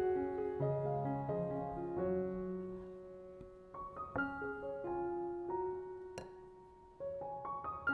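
Gentle solo piano background music, a slow melody over sustained chords, with one sharp click about six seconds in.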